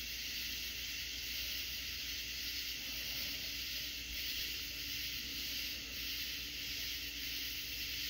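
A loud chorus of cicadas: a dense, steady high-pitched drone that holds without a break or pulsing.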